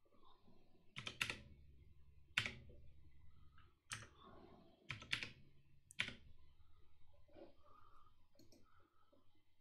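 Computer keyboard keystrokes: about seven sharp, separate key clicks spread over the first six seconds, then a few fainter taps, as numbers are typed into form fields.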